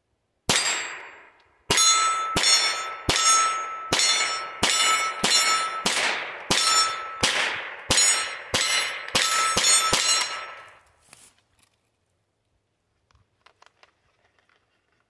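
Ruger 22 Charger .22 LR semi-automatic pistol fired in a string of about fifteen shots over ten seconds, unevenly spaced, each shot followed by a fading metallic ring. Faint handling clicks follow.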